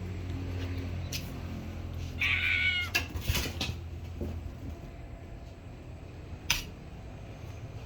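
A pet animal gives one short, high-pitched whining cry a little over two seconds in, followed by a few sharp clicks, over a steady low hum.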